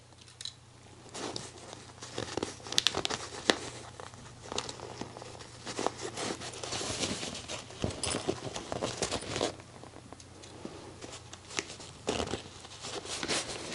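Rustling and crinkling of a denim bag and its waterproof canvas lining as they are handled and pushed into place, with scattered small clicks and knocks.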